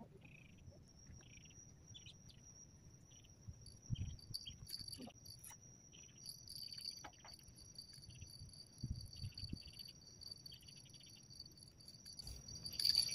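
Faint chirping of insects, likely crickets: a steady high-pitched trill with short bursts of quicker chirps coming and going. A few soft low thumps and a sharper click near the end come through as well.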